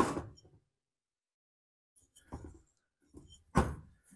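Handling knocks and clunks from chainsaw engine parts: one sharp knock at the start, then a few softer knocks about two to four seconds in.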